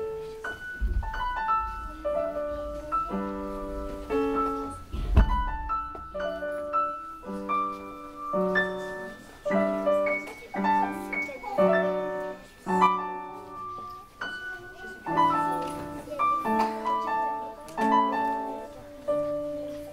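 Piano playing a tune in a steady run of chords, each one fading after it is struck, with a couple of low thumps about one and five seconds in.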